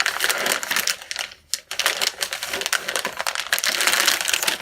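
Motherboard packaging being handled, crinkling and rustling in a dense run of small crackles and clicks, with a brief lull about a second and a half in.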